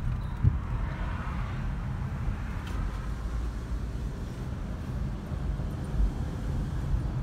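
Low, steady road and engine rumble heard inside the cabin of a slowly moving car, with a light bump about half a second in and another around six seconds in.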